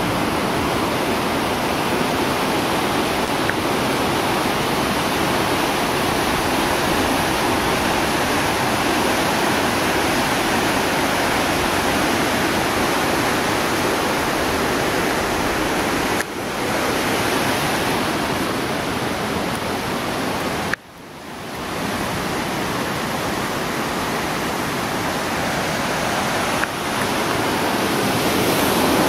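Swollen, muddy stream in flood rushing down its rocky channel: a steady, loud rush of fast water. The sound dips briefly a few times, most sharply about two-thirds of the way through.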